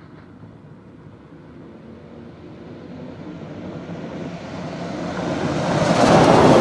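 A vehicle approaching, its noise growing steadily louder over several seconds and loudest near the end.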